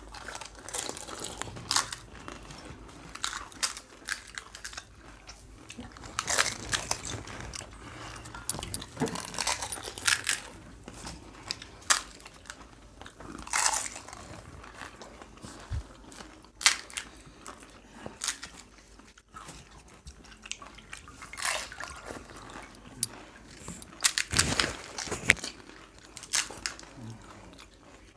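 Crisp pani puri (phuchka) shells being bitten and chewed one after another: irregular crunches and crackles with wet chewing between them.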